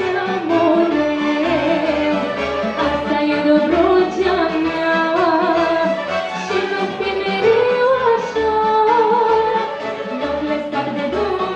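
Woman singing a Romanian folk song with a live folk orchestra of violins and accordions, over a steady beat in the bass.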